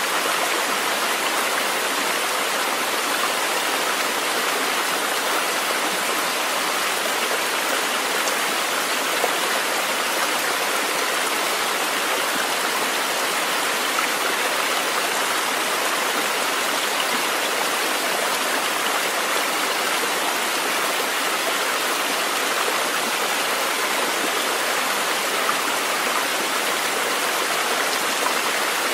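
Steady, unbroken rush of flowing water, like a stream, from a nature-sounds recording.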